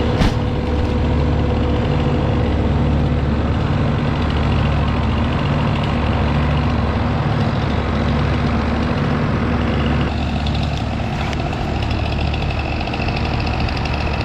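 A heavy engine running steadily, with a regular low pulsing about once a second and a sharp knock just after the start.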